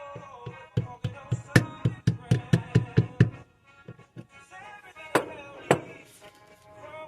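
Hammer tapping a pin punch to drive a roll pin into the safety of a Girsan Regard MC pistol: about a dozen quick sharp taps, roughly four a second, starting about a second in, then two more taps a couple of seconds later. Background music plays underneath.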